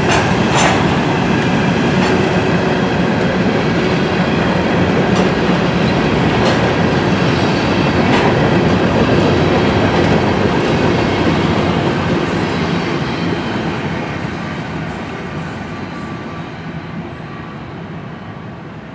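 A train rolling past, its steel wheels clattering over rail joints with scattered sharp clicks. The noise fades steadily over the last several seconds as the train moves away.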